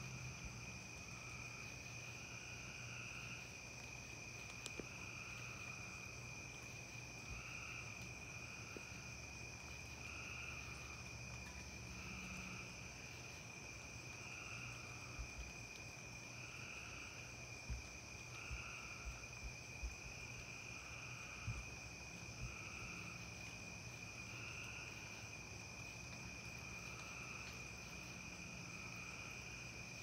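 Night chorus of crickets: a steady high-pitched trill, with a slower call pulsing about once every second or so underneath it. A few faint low thumps come in the middle.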